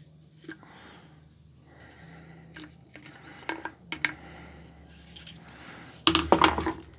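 Plastic chainsaw handle and fuel-tank housing being handled, rubbing with a few light knocks. Near the end it clatters loudly against the metal workbench in a quick run of knocks.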